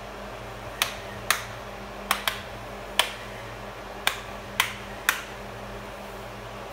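Plastic retaining clips of a Dell Precision 7510's LCD bezel snapping into place as the bezel is pressed around the screen: about eight sharp clicks at irregular intervals.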